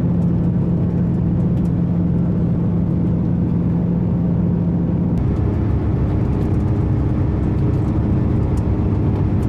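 On-board sound of a KiHa 281 series diesel railcar under way: a steady diesel engine drone over running rumble, the engine note stepping higher about five seconds in.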